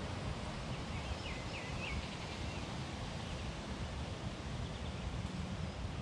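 Outdoor park ambience: a steady low rumble, with a short run of faint bird chirps about a second and a half in and another faint chirp near the end.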